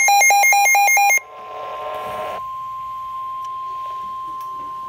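NOAA Weather Radio emergency alert. First comes a fast electronic warble that switches between two pitches for about a second. Then the steady single-pitch 1050 Hz warning alarm tone sounds, which signals a warning is about to be read.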